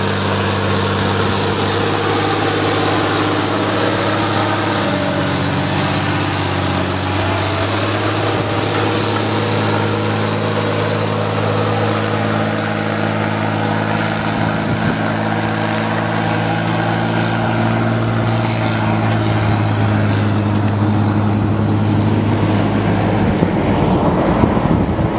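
Fendt Favorit 612 Turbo tractor's turbo diesel engine running steadily as the tractor hauls two trailers past through the mud and pulls away.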